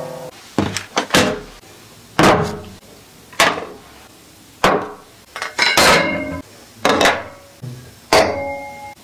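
A series of hard knocks and clinks of tableware, about one a second, each ringing briefly: plates and a glass set down on a wooden table.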